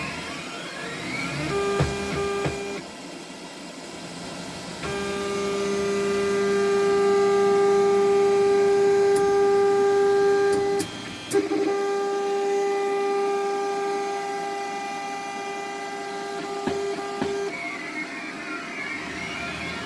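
Stepper motors of a SeeMeCNC Rostock V3 delta 3D printer whining as they drive the carriages during its G29 auto-calibration routine. The whine is mostly a steady pitched hum that stops and restarts, with pitch sweeping up and down near the start and end as the motors speed up and slow down. A few sharp clicks come, one near the middle.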